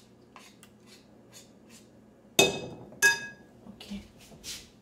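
A metal spoon scrapes faintly in a glass mixing bowl, then clinks sharply against the bowl twice about two and a half seconds in, each clink ringing briefly, followed by a few softer knocks.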